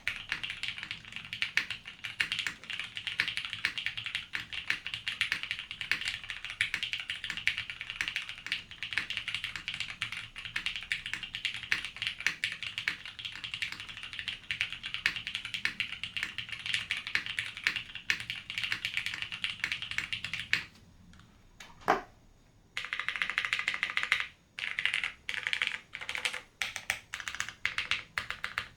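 Fast continuous typing on a mechanical keyboard with lubed vintage Cherry MX Brown tactile switches, a polycarbonate plate and BSP keycaps. The keystrokes are dense clicks. About two-thirds of the way through the typing stops, a single sharp click sounds, and then typing resumes with the keystrokes more spaced out.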